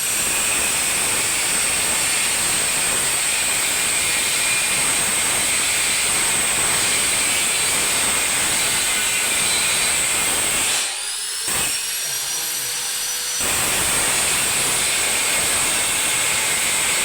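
Electric arc welding on steel pipe: a steady hiss with a thin high whine. It breaks off for about two seconds just past the middle, then strikes up again.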